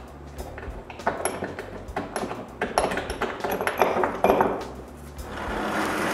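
Threaded insert nut being screwed into wood through a guide jig: a run of light metallic clicks and pings, several a second. About five seconds in, a steady whirring sound starts.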